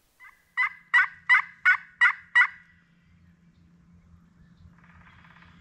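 A series of six loud turkey yelps, evenly spaced at about three a second and then stopping, with a fainter rattling call near the end.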